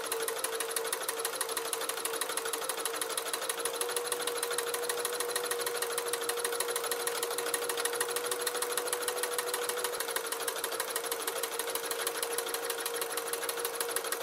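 Janome My Style 32S sewing machine stitching steadily without pause, its motor humming under a fast, even run of needle strokes. The feed dogs are lowered for free-motion darning.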